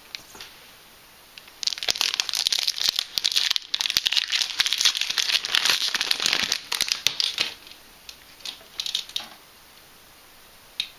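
Foil Yu-Gi-Oh booster pack wrapper crinkling as it is torn open and handled. The dense crinkling starts about two seconds in and lasts some six seconds, followed by a few brief scattered crinkles.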